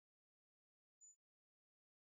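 Near silence, with one faint, short high-pitched blip about a second in.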